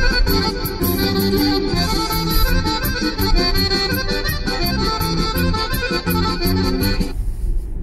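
Accordion-led Vlach kolo dance music with a fast, steady beat, cutting off suddenly about seven seconds in. Steady car road noise is left after it.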